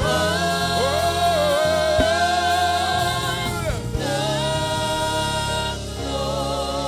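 Gospel worship song: sung voices hold long drawn-out notes over steady instrumental backing. One note is held for about three and a half seconds, then slides down into another long held note.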